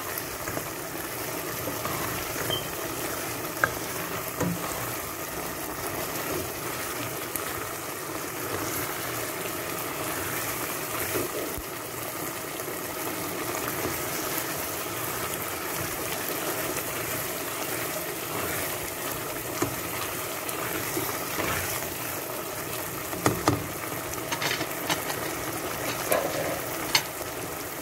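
Ground-meat tomato sauce bubbling and sizzling steadily at a simmer in a pot, nearly done, with a few short knocks of the spoon against the pot, mostly near the end.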